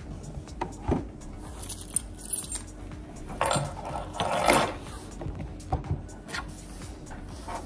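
Ice cubes clinking and rattling as they are handled and dropped into a pet's water bowl, with scattered clicks and a denser clatter about three and a half to four and a half seconds in.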